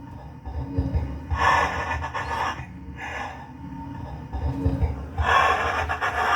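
Slowed, pitch-shifted EVP audio recording played back: breathy, gasp-like voice sounds over low rumbling thumps, the same stretch playing twice. The owner takes it for his dead son's voice saying "Dad, I've been here since this morning."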